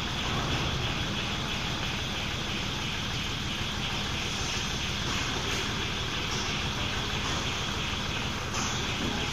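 Electric overhead travelling (EOT) crane driven from its pendant, running steadily with a continuous motor and gear hum and a faint regular ticking a few times a second.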